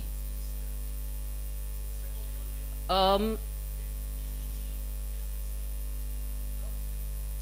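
Steady electrical mains hum, with one short spoken word about three seconds in.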